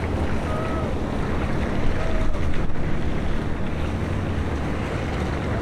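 Steady wind noise on the microphone with a low rumble underneath, and a few faint, brief tones in the background.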